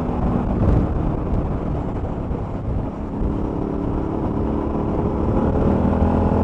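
Suzuki V-Strom 1000's V-twin engine running under way, mixed with steady wind rush from riding. From about halfway the engine note climbs gradually as the bike accelerates.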